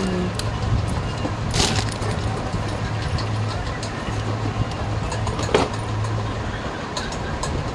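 Glass bangles clinking and cardboard boxes being handled as they are sorted and packed, a few sharp clicks over a steady low hum and background noise.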